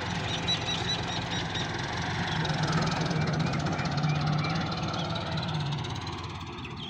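Tractor engine running steadily. It builds up in level around the middle, then eases off near the end.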